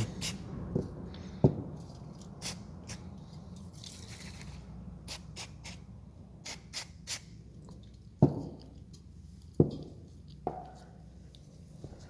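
Small clicks and taps as a plastic car instrument cluster is handled, with a brief hiss of aerosol contact cleaner sprayed onto its socket connections. Three louder knocks come in the second half.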